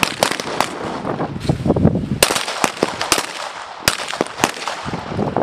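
Several M17 9mm pistols firing from multiple shooters along a firing line: a rapid, uneven string of sharp shots, some loud and close, others fainter.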